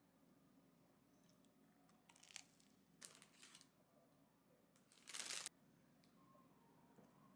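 Thin clear plastic bread bag crinkling in three short bursts as a slice of bread is taken out of it, the loudest rustle about five seconds in.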